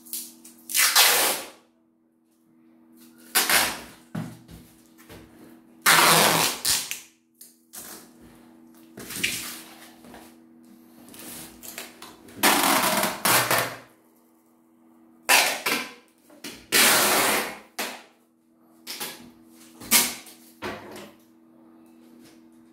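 Clear packing tape pulled off the roll in long strips, again and again, about nine times, as it is wound around a stack of cardboard boxes. A faint steady low hum runs underneath.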